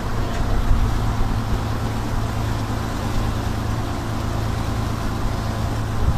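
Tour boat's inboard engine running steadily under way, a constant low drone, with the rush of the wake churning behind the stern.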